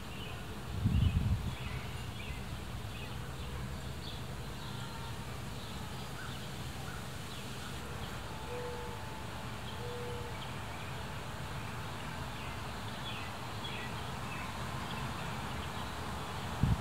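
Backyard ambience: small birds chirping over a steady low rumble. Two dull thumps, about a second in and again near the end, are the loudest sounds.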